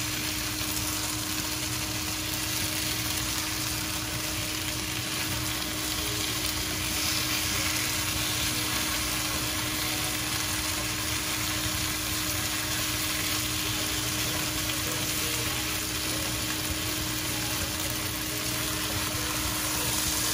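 Pieces of rui fish frying in onion masala in a nonstick pan, a steady sizzling hiss, with a wooden spatula turning and scraping them. A faint steady hum runs underneath.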